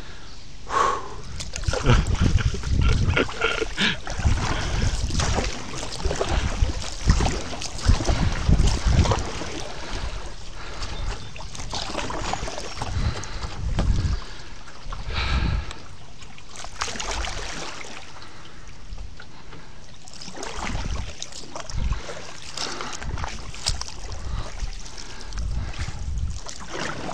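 Kayak paddling: the paddle blades dip and splash, with water trickling off them, while wind buffets the microphone in irregular gusts.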